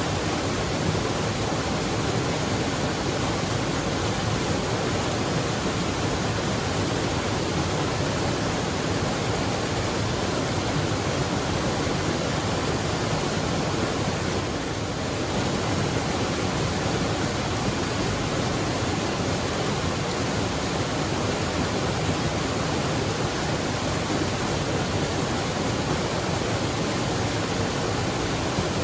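Waterfall rushing steadily, a loud, even roar of falling water with a slight brief dip about halfway through.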